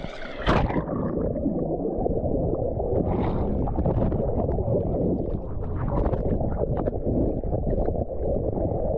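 Small boat under way at night: a steady rough rumble of its motor mixed with rushing water and wind on the microphone, beginning with a sudden loud knock about half a second in.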